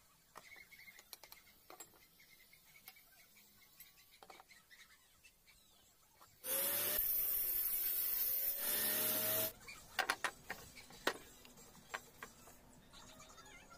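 A table-mounted jigsaw cuts a pine board, running for about three seconds about halfway through, its motor pitch dipping and rising under load. Before the cut come quiet scrapes and light taps of wood being marked and handled; after it, several sharp knocks of wooden pieces set down on the table.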